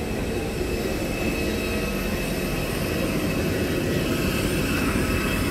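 Aircraft jet engines running steadily: an even roar with a thin high whine, growing slightly louder toward the end.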